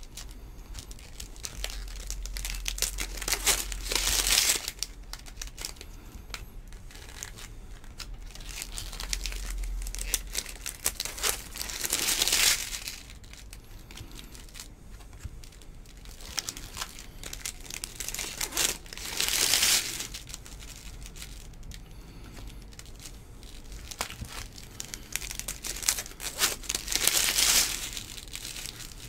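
Trading cards being flicked and slid one behind another in the hands: a steady patter of light card clicks, broken about four times by a longer, louder rustling swish.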